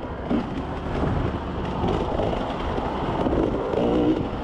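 Off-road vehicle engine running on a trail, its pitch rising and falling under a steady rumbling noise, with a short rev near the end.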